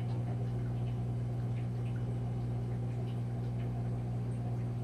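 A steady low hum at an even level, with a faint hiss behind it.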